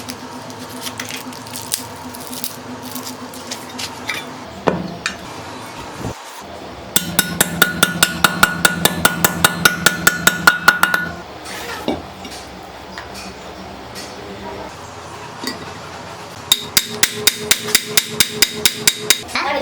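Power impact tool hammering in two spells of rapid, evenly spaced blows, each a few seconds long, with a tone under the blows. Between the spells there is a steady low hum with scattered metal clicks.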